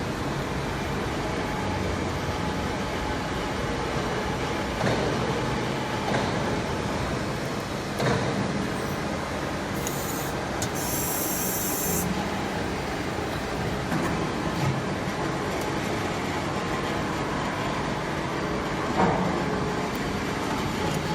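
CNC servo press brake running in a workshop: a steady machine noise with a few short knocks, and a brief high hiss about ten seconds in.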